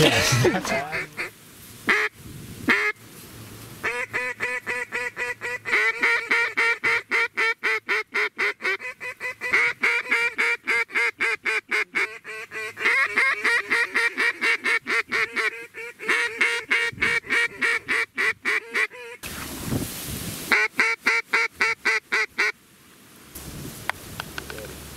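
Single-reed Arkansas-style mallard duck call, an Echo, blown in long runs of short, rapid quacks, several a second, with a short break just before the last run about 20 seconds in.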